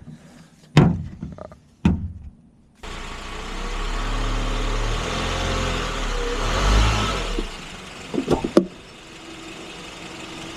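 A car door thunks shut twice. About three seconds in, a Honda K24 four-cylinder engine starts and runs at raised revs for a few seconds, then settles to a lower, steady idle a little after seven seconds in, with a couple of clicks.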